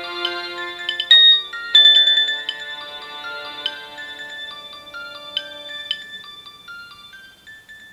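Nokia 6280 ringtone playing: a melody over held chords, with two loud accented notes about one and two seconds in. It grows gradually quieter and ends near the end.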